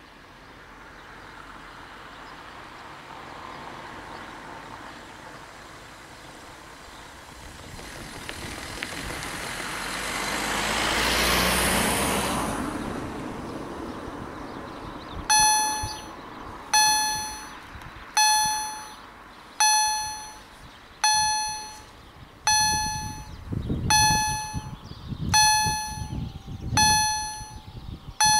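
A passing vehicle, its noise rising to a peak about halfway through and then fading. About fifteen seconds in, the level crossing's EHL-S10 electronic warning generator starts sounding a bell-like ding about every second and a half, each strike fading away: the crossing's warning for an approaching train, as its red lights come on.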